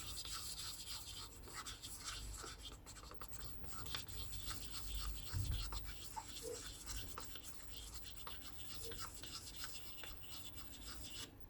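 Faint rubbing and light scratching as a small plastic-tipped screwdriver works at a dented titanium tweeter dome, pushing the dent out, with many tiny irregular ticks throughout.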